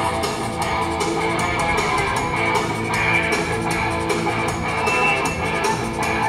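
Rock band playing an instrumental passage between sung lines: electric guitars and bass over a steady drum-machine beat.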